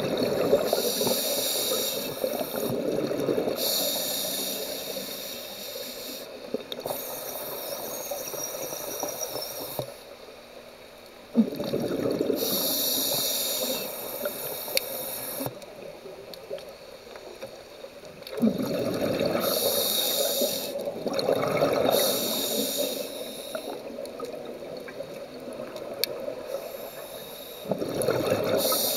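Open-circuit scuba regulator breathing heard underwater: a hiss through the demand valve on each inhale, then a burst of bubbling exhaust on each exhale. About four breaths, a few seconds apart.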